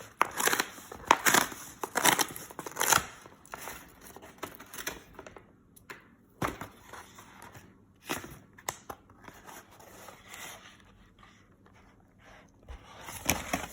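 Packaging being torn open and crumpled by hand: irregular rustling and tearing, busiest in the first few seconds, then sparser rustles and snaps with a quieter stretch near the end.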